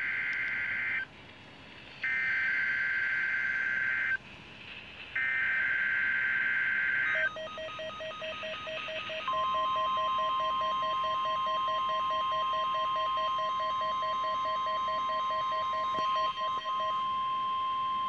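Midland WR300 weather radio receiving a NOAA Weather Radio Required Weekly Test. First come three bursts of shrill warbling SAME digital header data, each about two seconds long with short gaps between. Then the radio's alert sounds: rapid pulsing beeps together with a long steady tone that begins a couple of seconds after the beeping.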